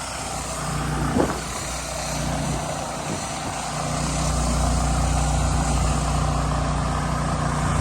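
A 10-gallon-a-minute gas pressure washer engine running steadily under the hiss of high-pressure water spray, getting louder about four seconds in.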